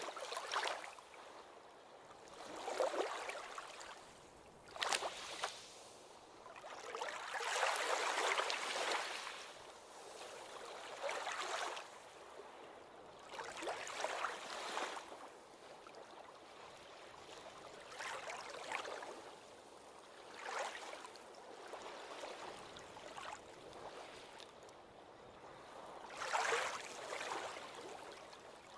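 Ocean waves washing up on a beach in repeated surges every two to three seconds, each swelling and fading, with a short, sharp splash about five seconds in.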